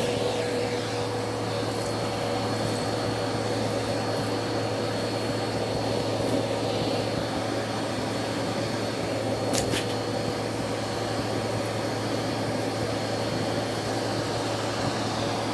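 Bissell CleanView vacuum cleaner running steadily, a constant motor drone with a faint high whine; a single light click about ten seconds in.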